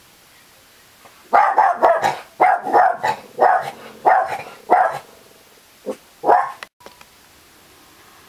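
A dog barking: a quick run of about a dozen barks, then a short pause and two more.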